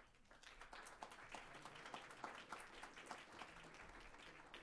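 Faint applause from an audience: many hands clapping, building up in the first second and thinning out near the end.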